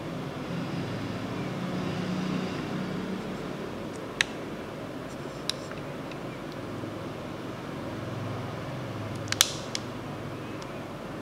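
A few sharp clicks of plastic toy parts being handled: one about four seconds in, another a second or so later, and a quick cluster near the end, over a steady low hum and hiss.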